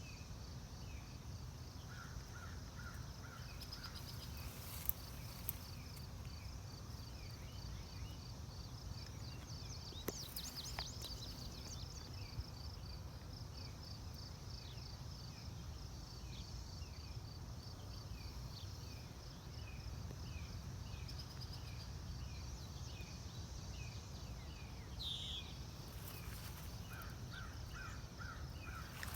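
Outdoor field ambience: insects trill steadily in a fast high pulsing, with short bird calls repeating over a low steady rumble.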